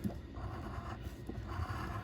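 A lottery scratch-off ticket being scratched, in two spells of scraping: one a moment in and another from just past halfway.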